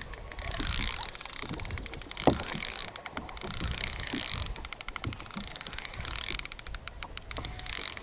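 Spinning reel clicking in rapid runs about a second long, several times, while a hooked bass is played on a light spinning rod.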